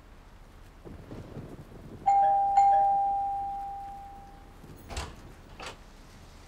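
Doorbell chime: two notes, ding-dong, about two seconds in, ringing out for about two seconds. Two short clicks follow near the end.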